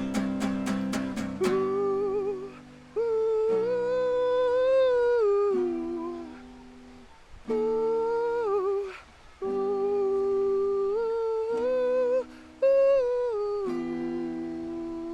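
Solo acoustic guitar and voice: a second or so of strummed chords, then a wordless hummed vocal melody in several long, gliding phrases over ringing guitar chords.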